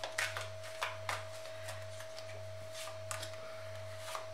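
Tarot cards being drawn and laid down on a tabletop: a run of light taps and slides, clustered in the first couple of seconds and again near the end, over a steady low hum.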